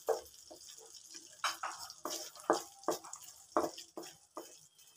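Whole spices sizzling lightly in melted butter in a pan, with a wooden spatula stirring and scraping against the pan in short, irregular strokes.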